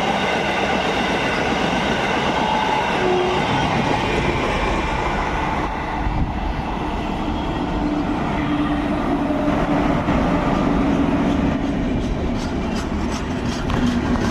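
Indian Railways train running on the track, a continuous rumble and rail noise that changes character about six seconds in, with scattered clicks near the end.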